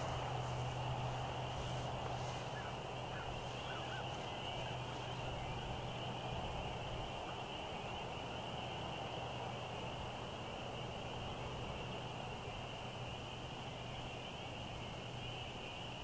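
Open-air country ambience: a continuous high-pitched chorus over a low steady hum that fades after about halfway.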